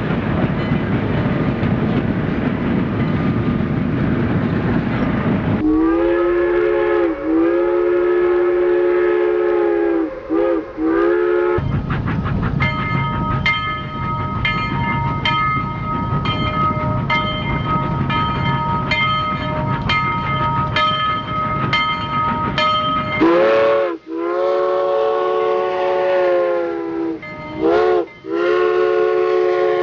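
Steam train running with a low rumble, then a steam locomotive whistle blown in long blasts of several notes at once. Between the blasts a bell rings at a steady beat over the train, and near the end the whistle gives a short toot before a last long blast.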